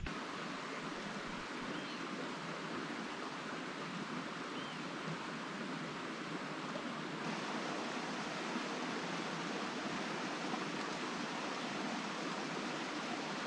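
Steady rushing of a small, shallow mountain creek flowing among rocks.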